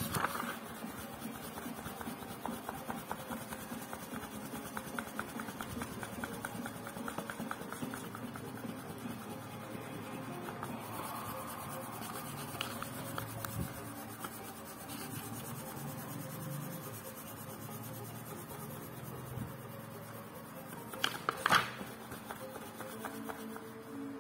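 Paper pages of a paperback book being leafed through and rubbed by hand, with a run of quick light flicks in the first half and a louder rustle of pages a little over twenty seconds in. Faint background music plays throughout and comes up near the end.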